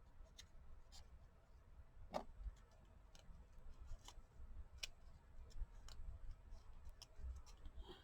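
Scissors snipping paper: faint, irregular clicks of the blades, roughly one every half second to a second.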